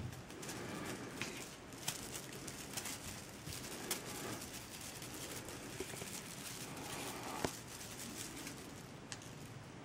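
Kittens scuffling and pouncing on a fabric blanket at a feather toy: soft rustling and patter, with a few sharp clicks, the sharpest about 2, 4 and 7.5 seconds in.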